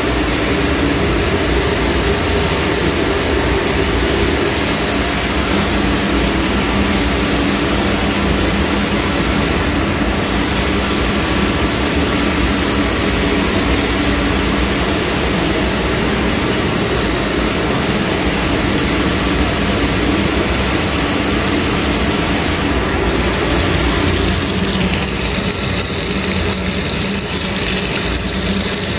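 Water running steadily from an automatic sensor faucet into a sink, turned on with no hand under it: the sensor is triggering by itself. The rush of water brightens and grows hissier from about 24 seconds in.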